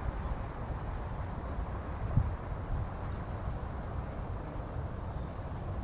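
Low, fluttering rumble of wind on the microphone in an open field, with faint short bird chirps now and then and a single soft bump about two seconds in.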